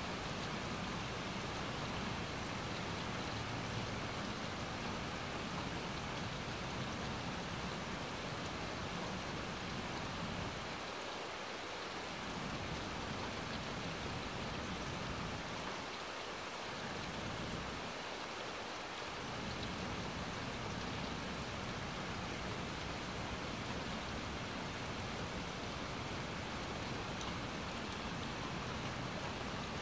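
Steady rain falling on a grassy lawn and trees, an even hiss of drops. A low rumble sits underneath and briefly fades twice midway.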